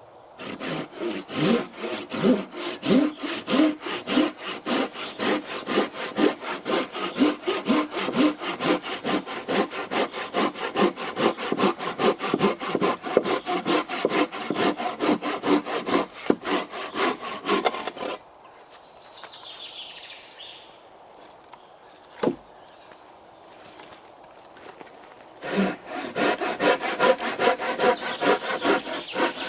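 Hand saw cutting through a dead fallen branch in quick, even back-and-forth strokes, about three a second. The sawing stops for about seven seconds two-thirds of the way through, with a single sharp knock in the pause, then starts again near the end.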